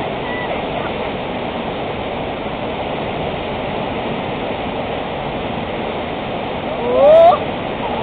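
Steady rush of whitewater river rapids, with one short, loud shout from a person about seven seconds in.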